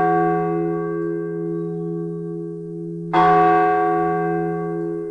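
A large tower bell tolling with a deep hum and many overtones. The ringing of one stroke fades, and the bell is struck again about three seconds in, then rings on.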